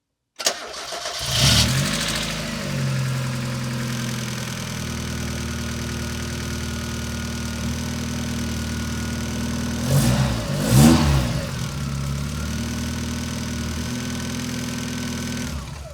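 Mazda Miata (NA) 1.6-litre four-cylinder engine cold-started after a short crank, with a high-pitched clatter of lifter tick, tick, tick that quiets down after a few seconds and leaves a steady idle. The tick comes from the hydraulic lash adjusters not yet filled with oil after the oil has drained down overnight. The engine is revved briefly twice a little past the middle and stops near the end.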